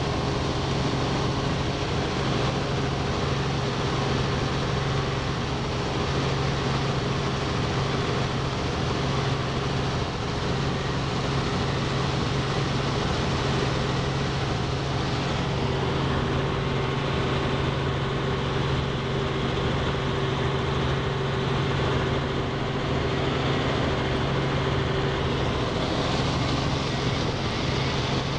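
Robinson R44 II helicopter in flight, heard inside the cabin: its piston engine and rotors make a steady drone with a strong low hum and a fainter higher tone over a constant rushing noise.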